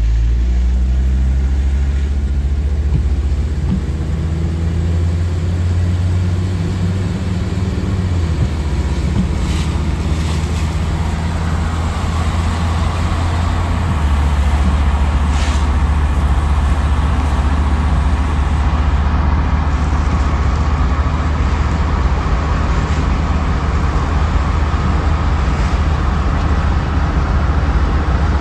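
Hummer H3 driving, heard from inside the cabin: a steady low engine drone with tyre and road noise on a wet road, the engine note rising over the first several seconds.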